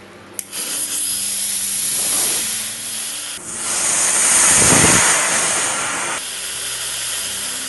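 A fuse hisses for about three seconds. Then a small potassium nitrate and sugar rocket motor in a half-inch PVC casing ignites and burns with a loud rushing hiss for under three seconds, before dropping back to a quieter hiss.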